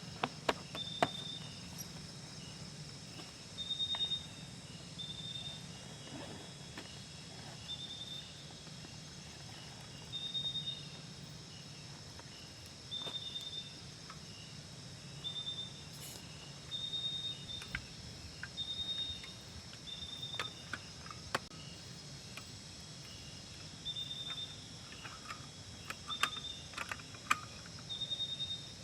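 An insect, likely a cricket, chirping in short high-pitched bursts every second or two, over a steady low background hum with scattered sharp ticks and taps.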